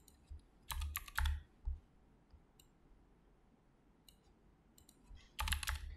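Clicks of a computer mouse and keyboard: a quick run of clicks about a second in, a few scattered single clicks, and another quick run near the end.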